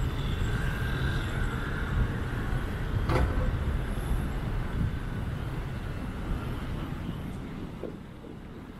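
City street traffic: a steady low rumble of passing vehicles, with a single sharp click about three seconds in, quieting near the end.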